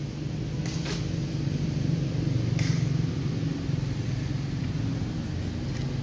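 A steady low rumble, a little louder about two to three seconds in, with a few short faint scratchy noises, two of them close together about a second in.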